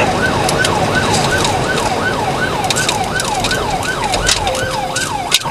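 Police car siren in fast yelp mode, its pitch sweeping up and down about three times a second, over the steady road noise of a car at speed in a pursuit.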